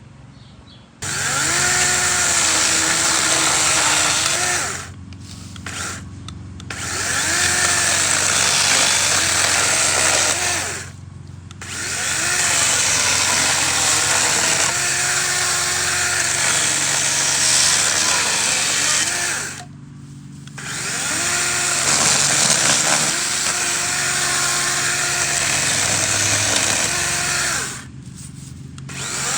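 DeWalt 12-inch 20-volt brushless battery chainsaw cutting branches, its motor whine dipping in pitch and recovering as the chain works through the wood. It runs in long stretches, stopping briefly several times between cuts.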